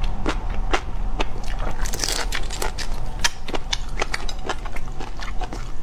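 Close-miked crunching as someone bites and chews crisp food, with irregular sharp cracks several times a second.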